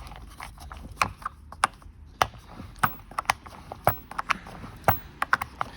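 Irregular sharp clicks and taps of hand tools and hard plastic parts being handled while a ride-on electric toy Jeep is put together, with a nut being worked onto the motor axle.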